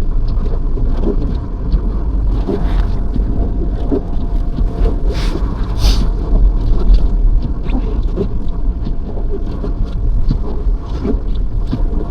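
Snowstorm wind rumbling on the microphone, with soft irregular crunches and two brief hissing gusts about five and six seconds in.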